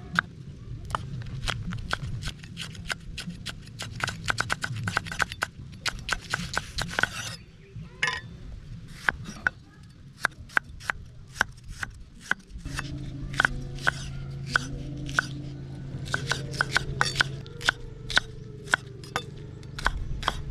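Cleaver chopping vegetables on a wooden cutting board: runs of quick, sharp knife strikes, with slower single cuts in between.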